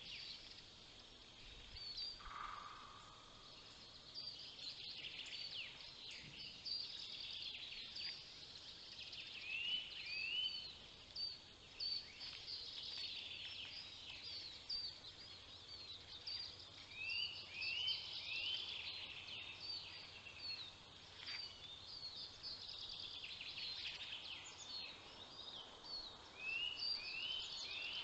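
Many small songbirds singing at once, a steady mix of high chirps and trills with a phrase of short rising notes that comes back several times.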